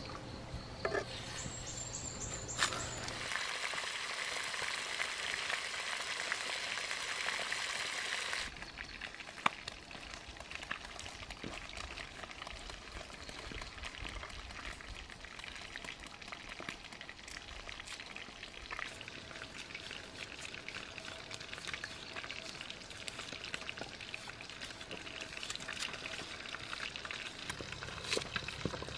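Fish frying in a pan over a wood fire, a steady sizzle that cuts off suddenly about eight seconds in. After that comes quieter outdoor background with scattered knife clicks as a green mango is peeled and a red onion is sliced on a wooden board, the clicks coming more often near the end.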